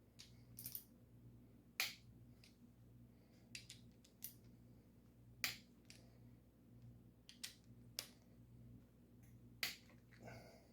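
Torque wrench clicking as small-block Chevy cylinder head bolts reach their first-pass torque of 20 ft-lb, a sharp click every couple of seconds, four loud ones with fainter clicks between.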